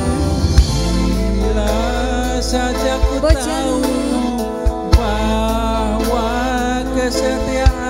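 Live tarling band music through a loud PA: keyboard and guitar with a woman singing a wavering melody, and several sharp drum strikes.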